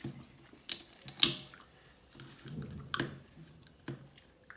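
Close-miked eating: a person chewing and biting food, with several sharp, crisp mouth clicks and crunches, the loudest about a second in, and softer chewing between them.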